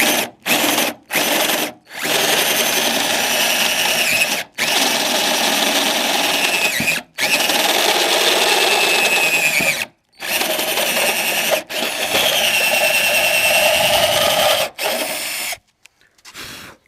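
Power drill running in a series of runs a few seconds long, each starting and stopping sharply, with a whine that wavers as it bites. It opens with a few short blips.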